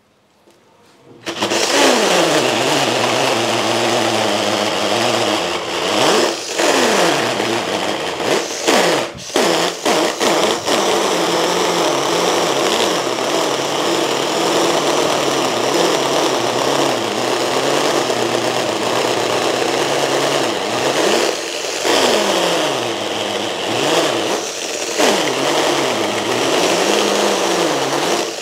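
Mollar MLR-CID20500-U cordless impact drill boring into K300 concrete with a 20 mm masonry bit, its hammer action rattling over the motor's whine. It starts about a second in, and the motor's pitch sags and recovers several times as it bogs under the load, with a few short stops near the middle. The drill is being pushed hard enough that its motor is smoking and running at about 96 degrees.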